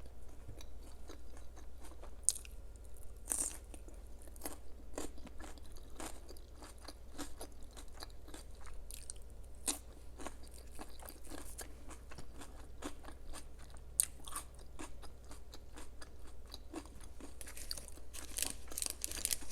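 Close-miked chewing and crunching of crisp food: a dense run of crackles, with a few sharper bites about 2, 3.5, 10 and 14 seconds in.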